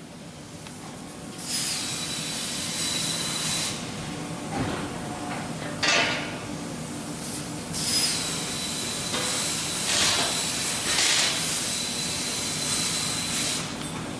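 CNC press brake working sheet steel: a steady low machine hum, two long stretches of hissing with a thin high whistle running through them, and a couple of sharp metal clanks in between.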